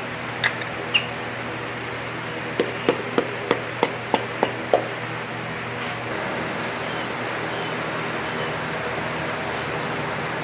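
A steady background hum, like a shop fan, with two sharp taps near the start and then a quick run of about eight sharp taps and clicks, the sound of hands working with tools and engine parts on a bench.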